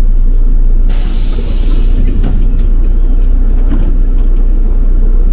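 Inside a moving city bus: steady low rumble of the engine and the road. About a second in, a hiss of compressed air lasts about a second.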